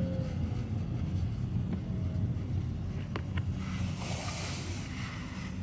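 Car cabin noise while driving slowly: a steady low engine and road rumble, with a couple of sharp clicks about three seconds in and a rising hiss of air in the second half.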